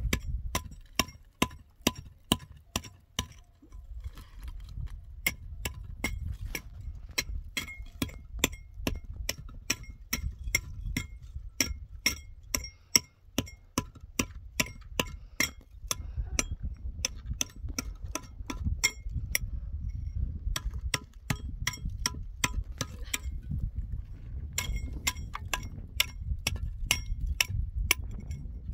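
Rapid, even tapping of something hard against a hollow concrete block, about two to three sharp clinks a second, each with a brief ring, over a low rumble.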